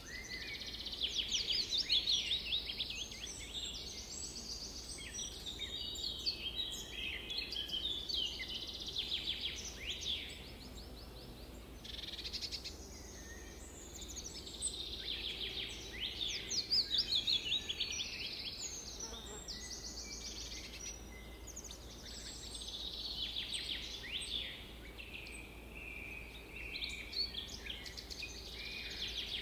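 Several songbirds chirping and singing at once over a faint steady background hiss, with many rapid trills that keep overlapping and coming back.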